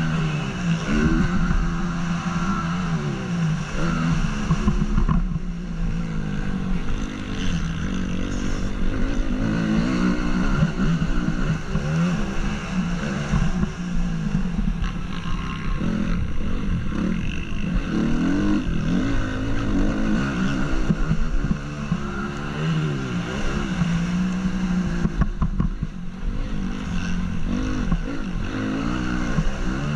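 2014 Honda CRF 250's single-cylinder four-stroke engine at race throttle, its revs climbing and dropping again and again, with brief dips where the throttle is shut off.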